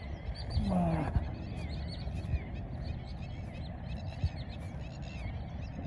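Many birds chirping, short quick calls overlapping throughout, over a low rumble; a brief man's call about a second in.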